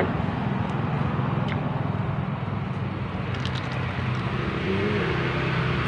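A steady low mechanical drone with a hum. Over it come a few faint crisp clicks as a raw green chili is bitten and chewed.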